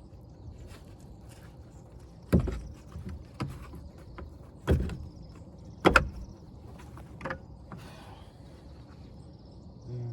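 Wrench and metal parts knocking and clanking at the brake caliper: a handful of sharp, irregular knocks, the loudest a quick double knock about six seconds in, as the 14 mm brake line fitting is worked loose.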